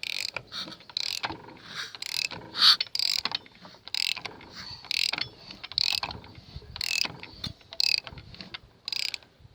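Car engine being turned over slowly by hand after a valve-shim and cam change, with mechanical clicking between short hissy puffs, about one a second. The puffs are the "pss, pss" of the cylinders making compression.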